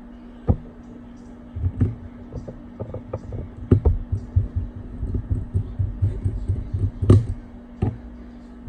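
Small clicks, taps and low knocks of hand tools and tiny screws being handled against an iPad mini 2 on a workbench as its back screws go in, with a few sharper clicks and a steady low hum underneath.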